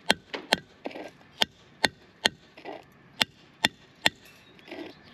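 Hammer striking a wide masonry chisel held on a concrete retaining-wall cap block, cutting the block by hand: about nine sharp metal-on-metal blows in three groups of three, roughly half a second apart.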